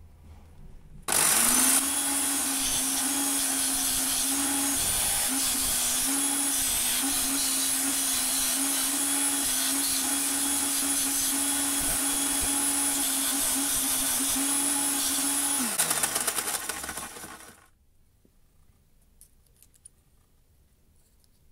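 Bench-top disc sander's motor spinning up about a second in and running steadily with a hum under a loud hiss as a small metal strip is ground against the disc. Near the end the motor winds down and the hiss stops.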